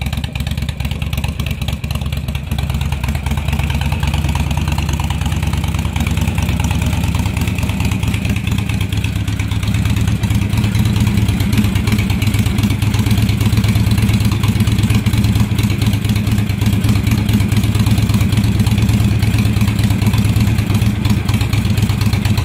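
2007 Honda VTX 1300R's V-twin idling steadily through straight Muzzy exhaust pipes, a loud, deep, pulsing exhaust note. It grows somewhat louder from about ten seconds in.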